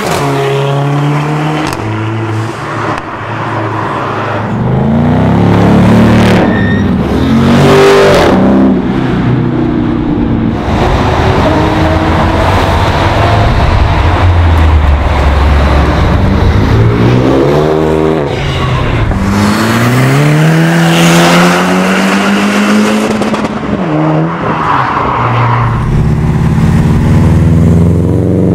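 A series of performance cars, among them a Mercedes-AMG A45 and Subaru WRX STIs, accelerating hard one after another as they pass, each engine note climbing in pitch as it revs up.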